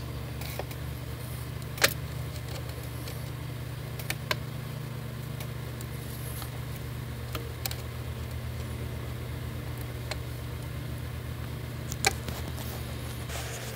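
A steady low mechanical hum, with a few sharp clicks and clinks of hand tools and hose clamps being handled; the clearest clicks come about 2, 4 and 12 seconds in.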